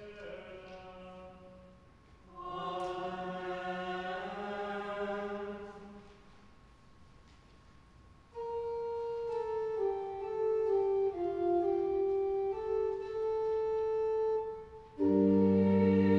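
Sung Latin chant with church organ. A sung phrase fades out, and after a short pause a slow melody in long, steady held notes begins. About fifteen seconds in, the organ and voices come in together much louder, with deep bass notes.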